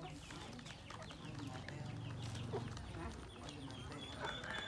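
A brood of ducklings peeping constantly in quick, high chirps, with an adult bird clucking; a louder call comes near the end.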